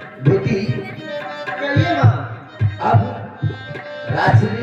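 Folk theatre accompaniment: a hand drum plays a repeating pattern of low strokes, often in pairs about a second apart, over sustained harmonium tones.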